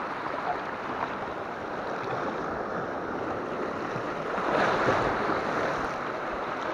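Small sea waves washing and splashing over shoreline rocks, swelling up once about four and a half seconds in.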